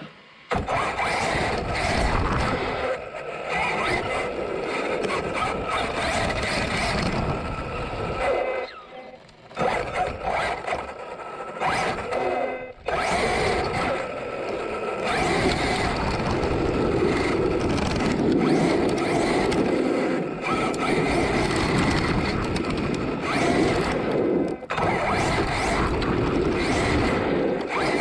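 Arrma Kraton 8S RC truck driving at speed, heard from a camera mounted on the truck: a steady whine over rough noise. It drops away briefly about nine seconds in and again for a moment near thirteen seconds.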